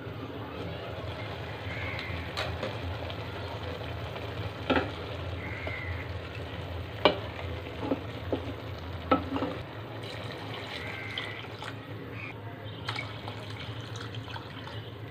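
A pot of dal cooking on a gas stove with a steady hiss, while a wooden spoon stirs it and knocks sharply against the aluminium pot several times. Water is poured into the pot near the end.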